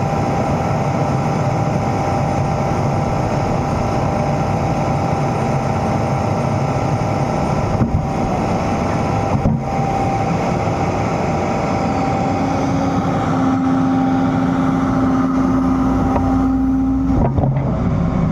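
Excavator's diesel engine running steadily, with a steady whine that comes in about twelve seconds in and stops near the end.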